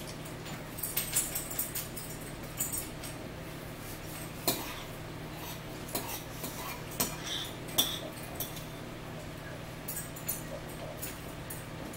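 Close-up eating sounds: chewing and lip smacking, with a fork now and then clinking against a ceramic bowl in a few sharp ticks. A low steady hum runs underneath.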